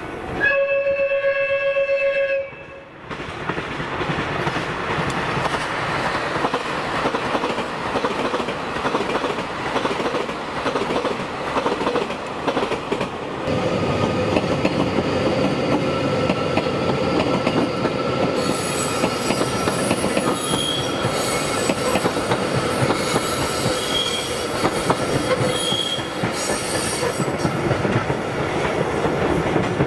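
A train horn sounds for about two seconds near the start. Then a JR Hokkaido train runs past with steady running and wheel noise that grows louder about halfway through, with high squealing tones over it in the later part.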